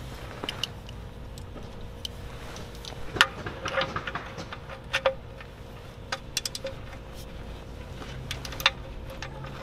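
Socket wrench with an extension clinking and clicking on metal as the oil drain plug is threaded back in and tightened. Scattered sharp clicks, the loudest about three seconds in, about five seconds in and near the end.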